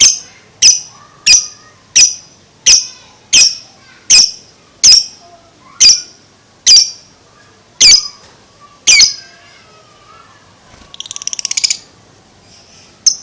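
Lovebird giving a run of shrill single calls, about one every three-quarters of a second, then after a pause a short, rapid chattering trill near the end.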